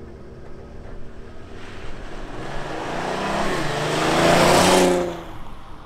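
Audi A3 3.2 VR6 launching hard from standstill using launch control and accelerating past on a dirt road, engine and tyre noise rising. It is loudest about four and a half seconds in, then drops away quickly as it passes.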